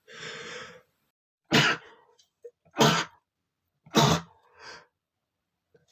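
A man sneezing three times in quick succession, each a short, loud, sudden burst about a second and a bit apart. The sneezes follow a breathy intake at the start.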